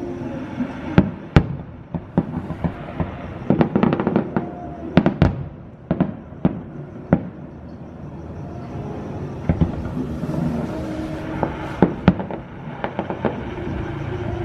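Fireworks going off: irregular sharp bangs and cracks, coming thickest a few seconds in and again past the middle.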